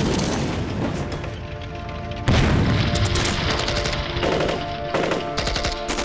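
Film battle sound effects over orchestral score: an explosion rumbling as a brick wall is blown apart, a second blast a little over two seconds in, then bursts of rapid automatic gunfire.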